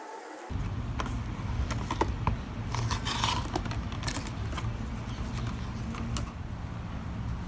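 TOYO sliding paper trimmer cutting a card: the cutter head scrapes along the rail in one short stroke about three seconds in, with light clicks and taps of the paper and trimmer being handled before and after. A low steady hum lies underneath.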